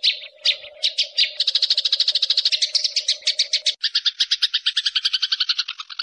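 Sparrows chirping: a few separate high chirps that quicken after about a second and a half into a fast chatter of about ten chirps a second, which changes tone near the middle as a lower note joins in.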